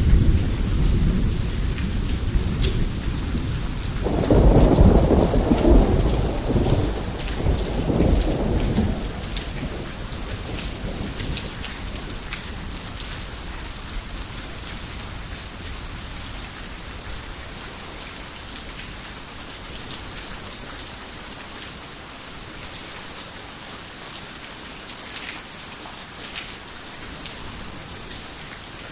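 Heavy rain falling steadily with thunder: a rumble at the start, then a louder peal about four seconds in that rolls on for several seconds and dies away, leaving steady rain with scattered drips.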